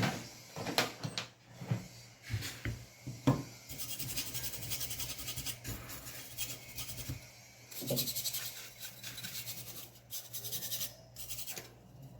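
Cleaning laptop parts by hand: a few light knocks and clicks, then two long spells of brisk scrubbing strokes.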